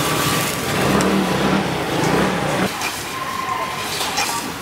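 Rice noodles and chicken sizzling in hot oil in a wok over a charcoal fire, a steady frying hiss, with a few sharp clicks of the metal ladle near the end. A low rumble joins in for the first half and stops abruptly about midway.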